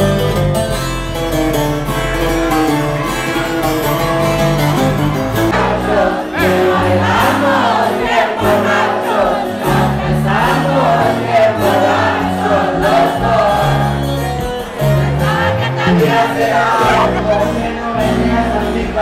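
Live band music with acoustic and electric guitars over a bass line, and a crowd singing along, which becomes louder and fuller about six seconds in.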